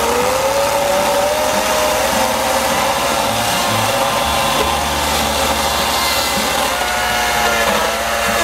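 EGO 14-inch battery-powered chainsaw cutting through a log. Its electric motor whines as it spins up at the start, holds a steady pitch, then wavers and dips near the end as the chain takes the load in the wood.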